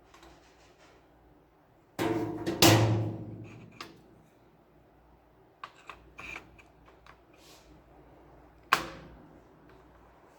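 Scattered knocks and clicks of hard objects being handled: a loud double knock about two seconds in that rings briefly, a few light clicks in the middle, and one sharp knock near the end.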